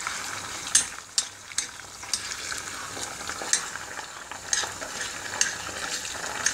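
Chopped onions with tomato and pepper paste sizzling in hot oil in a metal pan while a spoon stirs them. Sharp clicks from the spoon scraping and tapping the pan come at irregular intervals over the steady sizzle.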